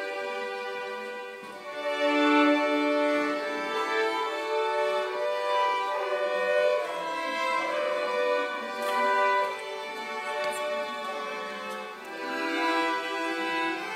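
Several violins playing a melody together inside a cave, in long held notes that change about once a second.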